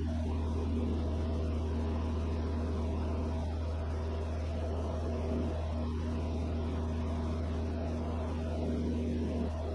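Van's RV-6A light aircraft's piston engine and propeller running steadily in cruise, heard inside the cockpit: an even low hum with a few steady higher tones over it.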